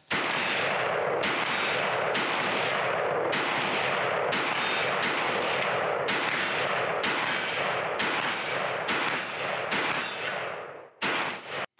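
A firearm shooting more than a dozen shots in quick succession, roughly one or two a second, each shot's echo running into the next.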